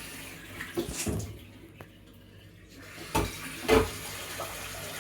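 Water running steadily with a rushing hiss, broken by a few knocks and thumps, the loudest two about three and a half seconds in.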